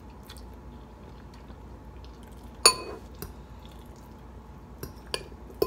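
A metal fork clinks sharply once against a dish, with a short ringing tone, followed by a few lighter clicks of cutlery near the end.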